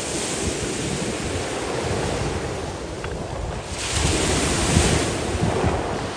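Small lake waves washing onto a shore of flat stones, one wave breaking louder about four seconds in, with wind buffeting the microphone.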